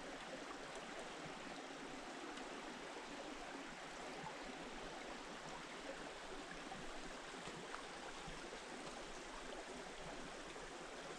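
Faint, steady rush of water flowing under ice.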